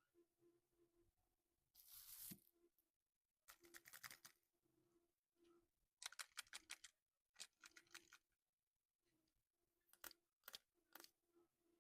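Snickers packaging being opened by hand: one long rip about two seconds in, then several short spells of fast, crackly crinkling. Quiet and close.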